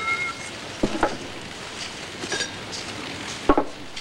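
Glass beer bottles and glasses being set down and knocked together on a table. A short glassy ring sounds at the start, then a couple of sharp clinks come about a second in and another near the end.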